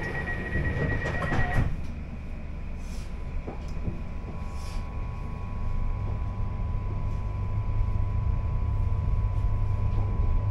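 Elizabeth Line Class 345 train running, heard from inside the carriage. A high steady whine cuts off about one and a half seconds in, and from about halfway a low hum with a faint steady tone grows slowly louder.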